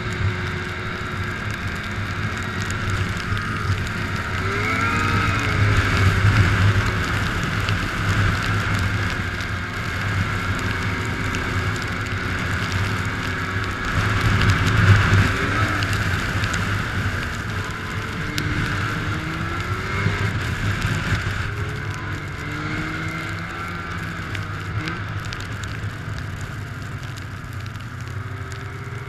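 2006 Arctic Cat Sabercat 700 snowmobile's two-stroke twin engine running under throttle while the sled ploughs through deep powder. The revs rise and ease off, surging louder about five seconds in and again about fifteen seconds in.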